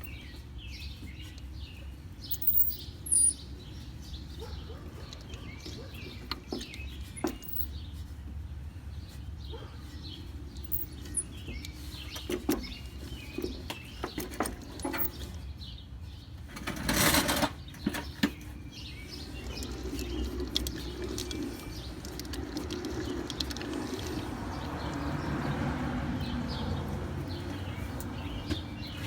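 Car drivetrain running with a steady low rumble, with birds chirping over it. Just past halfway there is a brief loud rushing burst. From about two-thirds in, a louder drone swells and then fades: the noise from a Chevrolet 10-bolt rear end.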